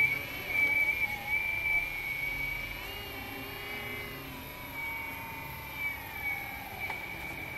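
Hydraulic pump on a 1/14-scale, full-metal, fully hydraulic CAT 330F radio-controlled excavator whining as the boom lifts a loaded bucket and the upper body swings. It is a steady high whine whose pitch shifts a few times, with a lower tone sliding down in the second half.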